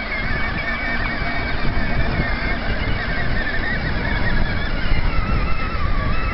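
Power Wheels electric drive motor and gearbox whining as the kayak cart rolls along under load, its pitch wavering and dipping lower near the end, over a low rumble.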